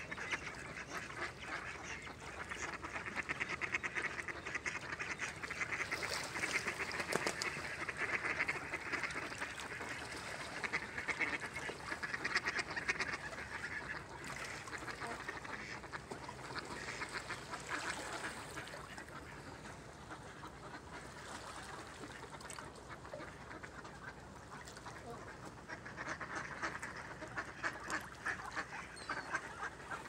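A flock of mallards quacking and chattering, many calls overlapping; the calling eases off a little past the middle and picks up again near the end.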